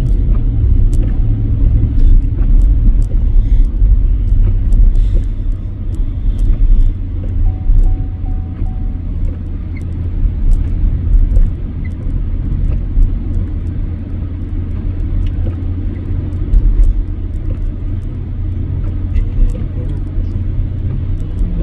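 Steady low rumble of a truck driving on a snow-covered road, heard from inside the cab: engine and tyre noise, with a few faint clicks.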